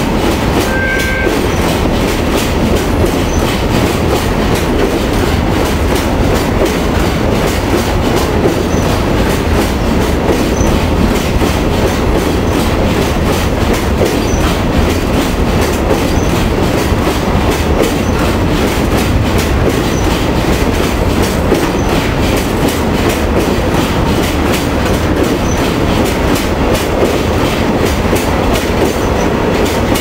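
Seino Railway freight train of Hoki 9500 hopper wagons rolling past close by, a steady loud rumble with the wheels clacking rhythmically over the rail joints. A brief high wheel squeal about a second in.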